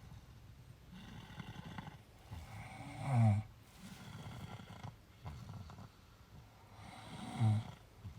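Deep, regular snoring from a sleeper worn out by a long walk. Two loud snores come about four seconds apart, each falling in pitch, with softer breathing between them.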